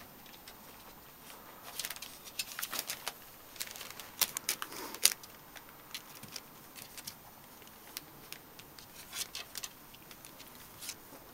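A litter of young puppies scrabbling and shuffling about in a whelping box: scattered light scratches and clicks from paws and claws on the bedding and box. They are busiest from about two to five seconds in and again around nine to eleven seconds.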